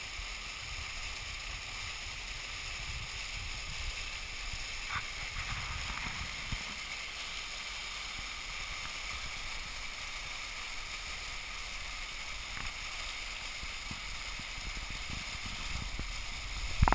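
Small mountain cascade pouring over rocks: a steady rush of falling water, with low rumbles now and then and a short loud knock right at the end.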